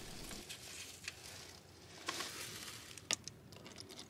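Faint tabletop handling noises: a few light taps and clicks, the sharpest about three seconds in, as paper cups and a plastic food container are handled on a folding table.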